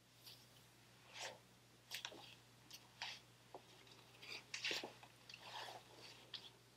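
Soft, irregular rustling and scuffing of clothing and body on a yoga mat as a person rolls up from lying on her back to sitting cross-legged.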